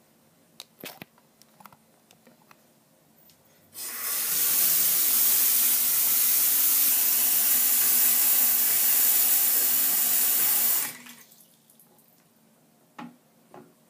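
Bathroom sink faucet turned on, water running steadily from the tap into the basin for about seven seconds, then shut off suddenly. A few faint clicks before it starts and a couple after it stops.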